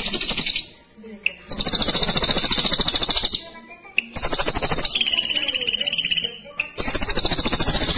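Ashy drongo (srigunting kelabu) singing fast rolling trills in loud phrases of one to two seconds with short gaps between them; the phrase in the middle drops to a lower pitch partway through.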